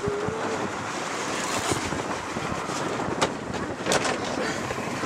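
Wind buffeting the microphone over the steady rush of rough sea aboard a boat, with two sharp knocks past the middle.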